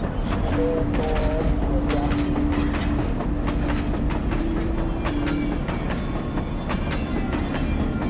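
Steady low rumble with scattered sharp clicks and a held mid-pitched hum that shifts pitch slightly partway through.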